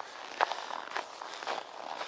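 Footsteps in snow as a person walks across frozen sea ice, about two soft steps a second.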